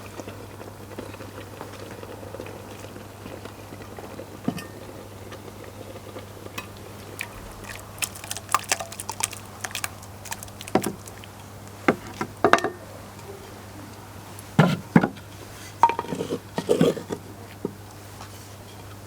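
Dishes and utensils clinking and knocking as curry is moved from a clay pot into a serving dish, in scattered strikes that grow frequent in the second half.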